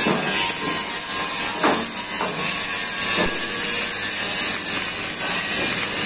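Steady hissing workshop noise with a few sharp knocks a couple of seconds in.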